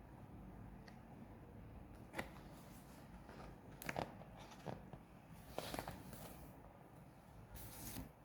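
Faint handling of packaging: scattered clicks and short rustles, with a few sharper clicks in the middle and longer rustles toward the end.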